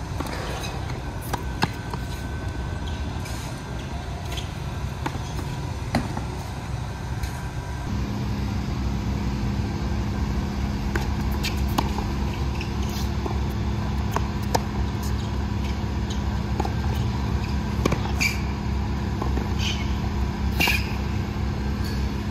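Tennis balls struck by rackets in a baseline rally on a hard court: sharp pops at irregular intervals, some loud from the near player and others fainter from the far end, over a steady low rumble. A steady low hum joins about eight seconds in.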